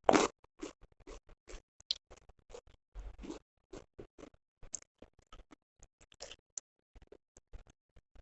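Close-miked chewing and eating sounds: a run of short, irregular clicks and smacks, the loudest right at the start.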